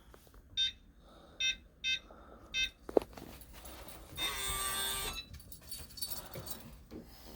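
Kwikset 905 electronic keypad deadbolt: four short beeps as a code is keyed in, then a click, then about a second of its small motor running as the bolt is driven back.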